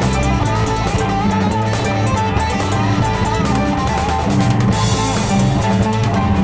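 Rock band playing: a driving drum kit and guitar over bass, with a bright cymbal wash coming in near the end.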